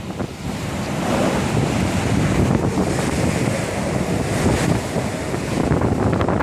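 Typhoon-force wind rushing and gusting without pause, buffeting the smartphone's microphone.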